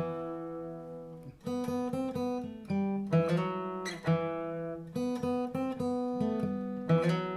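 Steel-string dreadnought acoustic guitar played with a pick: chords of a song in E minor picked string by string and strummed, each left to ring and die away before the next.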